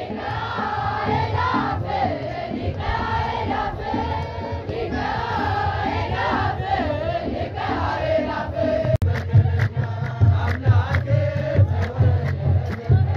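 Ethiopian Orthodox liturgical chant: a group of voices singing together over a steady beat on a kebero drum, with hand claps. The sound breaks off abruptly about nine seconds in and resumes with the drum beat louder.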